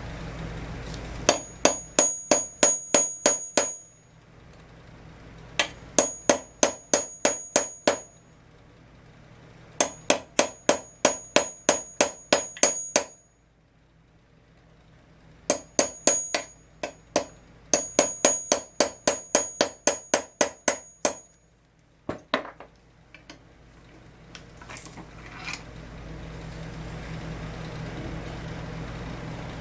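A hammer tapping a thin steel pin punch set on a Champion CJ14 spark plug clamped in a bench vise, trying to drive its centre out. The taps come in four quick runs of about four light strikes a second, each with a high metallic ping, followed by a couple of lighter knocks.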